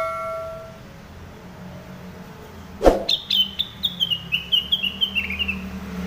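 A caged cucak rengganis (cucak wilis) bulbul sings a fast run of short chirps, about five a second, stepping down in pitch, from about halfway through. The chirps follow a sharp knock, and a bell-like ding fades out at the start.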